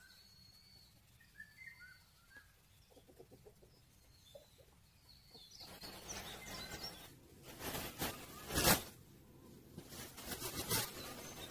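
Faint birdsong, a few short chirps over quiet outdoor ambience. In the second half come rustling and several sharp knocks or clicks, the loudest about three-quarters of the way in.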